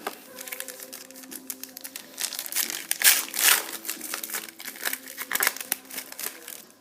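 Trading card pack wrapper crinkling and rustling as the cards are handled, with a run of quick snaps and rustles that is loudest about three seconds in.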